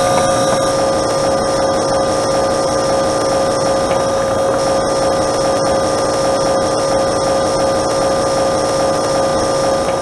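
Refrigerator compressor running: a steady buzzing whir with a constant whine in it, the normal operating sound of the compressor pumping refrigerant to make cold air.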